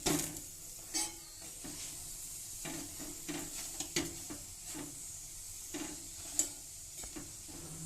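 Paratha frying in mustard oil on a tawa: a steady sizzle, with a spatula pressing and scraping it and clicking against the pan a few times.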